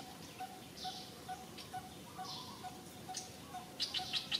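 A bird calling in the background, repeating a short low note about two or three times a second, with fainter high chirps now and then. A quick run of sharp clicks near the end is the loudest sound.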